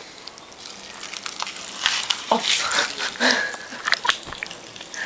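Pop Rocks popping candy crackling and snapping, with scattered sharp clicks and a denser burst of crackle about two seconds in.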